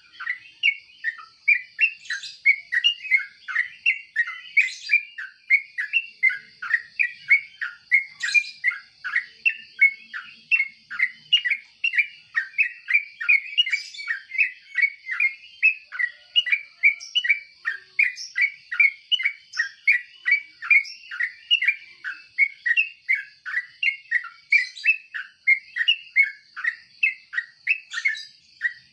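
Yellow-vented bulbul chirping: an unbroken run of short notes, about three a second, over a steady high-pitched tone.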